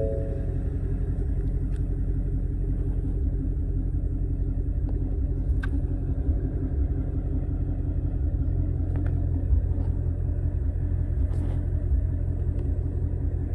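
Ford Mustang Shelby GT350's V8 engine idling with a steady, deep rumble.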